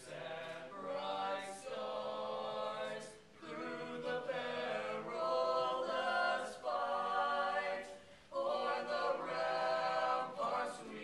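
A group of male voices singing a capella, in long held notes with short breaks between phrases.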